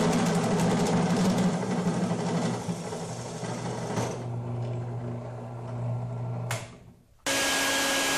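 Drill press cutting a hole through 1/8-inch aluminium flat bar with a step bit, loud for the first two or so seconds and then quieter as it runs on; it stops about seven seconds in. Right after, a vacuum cleaner starts abruptly, sucking up the aluminium chips.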